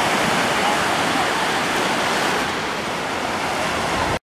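Ocean surf washing onto a sandy beach: a steady rushing hiss that cuts off abruptly near the end.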